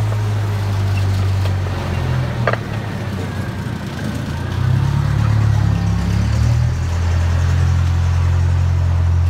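Zoo train locomotive engine running with a loud, low drone as the passenger cars roll along; its pitch wavers through the middle and settles into a steady drone for the last couple of seconds.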